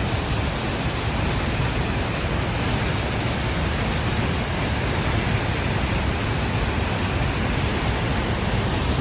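Steady rushing noise of the Ceunant Mawr waterfall, water falling and crashing without letup.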